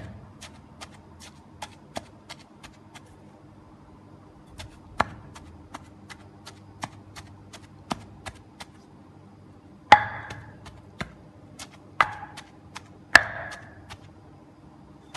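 Pestle pounding herbs and chicken into a paste in a mortar: light, even taps about three a second, with a pause near the start and a few harder knocks about 5, 10, 12 and 13 seconds in.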